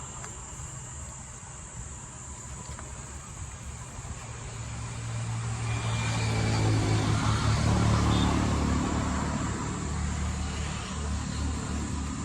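A motor vehicle's engine passing close by. It grows louder from about four seconds in, is loudest around eight seconds, then fades toward the end.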